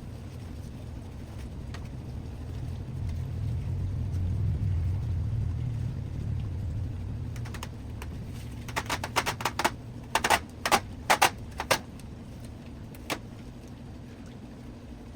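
A low rumble that swells and fades, then a quick run of sharp clicks and rattles, with one more click a little later.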